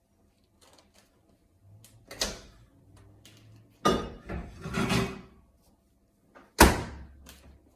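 Microwave oven door opened and shut: a knock about two seconds in, a clunk and clattering handling about four seconds in, then a sharp bang of the door closing near the end, the loudest sound.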